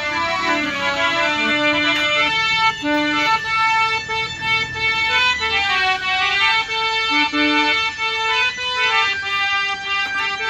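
Electronic harmonium with a Casio keyboard fitting playing a melody in held, reedy notes that change every half second or so.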